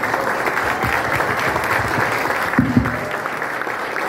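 Audience clapping at the end of a speech, a dense, steady applause, with a dull thump about two-thirds of the way through.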